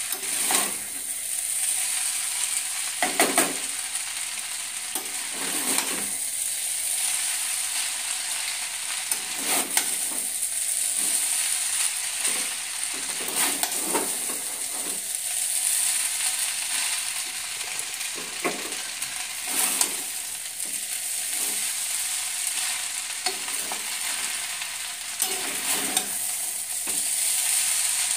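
Noodles sizzling steadily in a metal pan, with a spatula scraping and knocking against the pan every second or two as they are stirred over and over to keep them from sticking to the bottom and burning.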